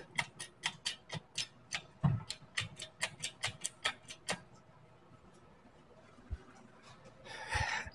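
Rapid, even clicking, about four clicks a second, from a Pittsburgh engine hoist's hydraulic hand pump being worked to lift the car's front beam. The clicking stops about four seconds in, with a dull thump about two seconds in.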